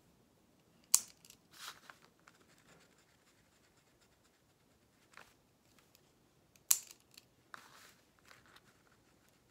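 Pen and paper handling on a drawing table: two sharp clicks about six seconds apart, each followed by short scratchy rustles of a multi-colour ballpoint pen and the paper sheet.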